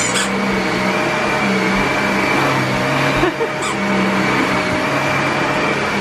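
Dyson vacuum cleaner running steadily on carpet: a rush of air with a high motor whine and a low hum, broken by two faint clicks, one just after the start and one about halfway through.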